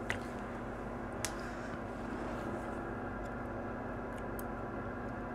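Steady electrical hum of workbench equipment, with two faint sharp ticks: one right at the start and one just over a second in.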